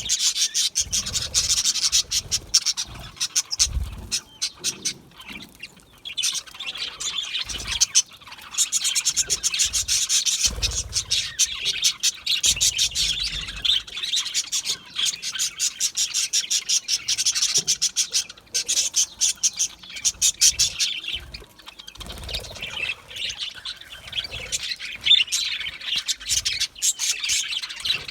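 A flock of budgerigars chirping and chattering in rapid, continuous warbles, easing off briefly a few times before picking up again.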